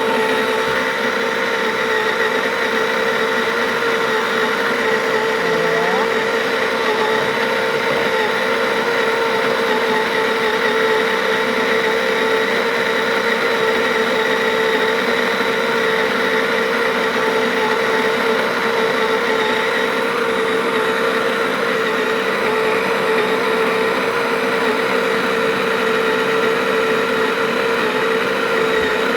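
Baratza Sette 270 conical burr grinder's motor running continuously, grinding a large 226-gram load of coffee beans, a loud steady whine that does not change.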